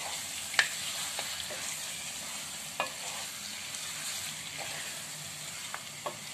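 Raw mutton sizzling in hot oil with fried onions in a non-stick kadai, a steady hiss, while a spatula stirs it and knocks against the pan a few times.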